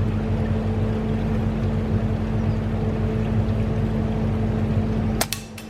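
Steady low rumble with a constant mechanical-sounding hum under it. About five seconds in there is a sharp click, and the rumble drops away.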